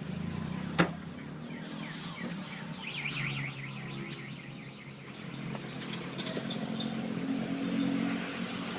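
A single sharp claw-hammer blow on a nail into plywood about a second in, over the steady hum of a motor vehicle's engine running. A short run of high chirps comes around three seconds in.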